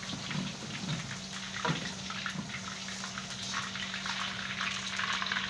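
Battered chicken pieces deep-frying in a wok of hot oil, sizzling and crackling steadily. A perforated stainless steel skimmer stirs them and scrapes against the wok a few times, once clearly about a second and a half in. A steady low hum runs underneath.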